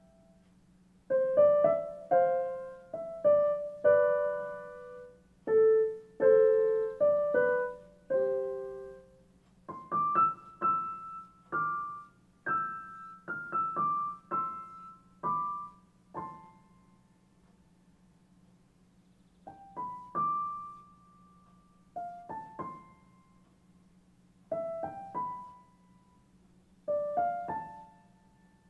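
Slow background piano music: single notes and small chords, each struck and left to fade, with a couple of short pauses. A faint steady hum runs underneath.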